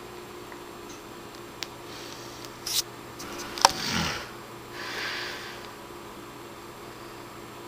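An elderly woman snoring in her sleep: one rough, snorting breath with a falling pitch about three and a half seconds in, followed by a long breathy exhale. A few sharp clicks come through, over a steady hum.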